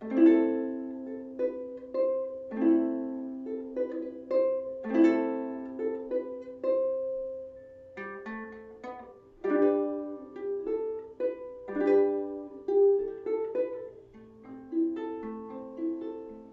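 Solo ukulele playing a picked chord-melody intro riff: struck chords with melody notes over A minor, then a change to a lower chord about eight seconds in.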